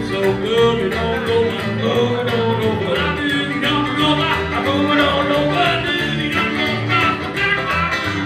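Live country-bluegrass trio playing: strummed acoustic guitar, picked banjo and plucked upright double bass.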